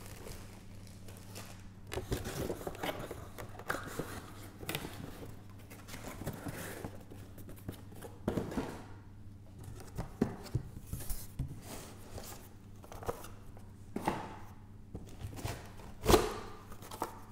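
Packaging being handled: a plastic bag rustling and cardboard box flaps being moved, with scattered small knocks as items are set down, and a louder cardboard thump near the end as a box flap is lifted. A faint steady hum runs underneath.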